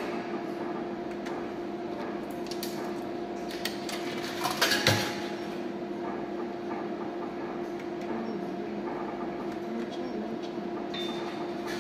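Coin-operated bar slot machine: a steady electronic hum with scattered clicks from the spins and reel stops. About four and a half seconds in comes a brief, louder metallic clatter as a coin drops in and adds one euro of credit.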